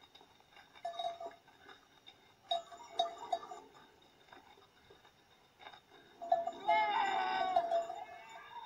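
Sheep bleating: a few short bleats in the first half, then one long, wavering bleat near the end.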